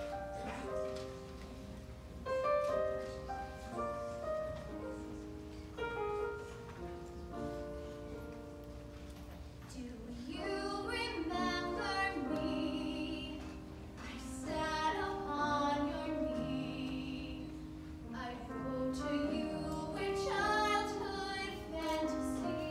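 A piano plays an introduction, and about halfway through a woman begins singing with vibrato over the piano accompaniment.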